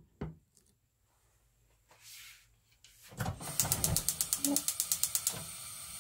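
Gas stove burner being lit: the igniter clicks rapidly, about ten clicks a second for nearly two seconds, then the burner catches and the flame hisses steadily.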